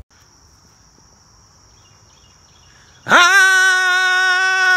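About three seconds of quiet outdoor background with a faint steady high whine. Then a man belts a single loud, long sung note and holds it at one steady pitch.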